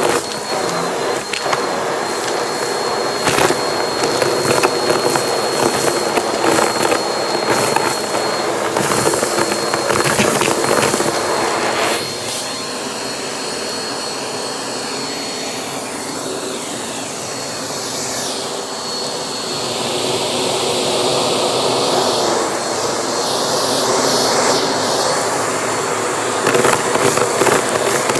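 Vacuum cleaner running, its crevice tool sucking up confetti-like debris from a shag carpet, with rattling clicks of bits going up the hose. About twelve seconds in the rattling stops and the suction goes on smoother and slightly quieter, with a slowly changing rush of air, before clicks return near the end.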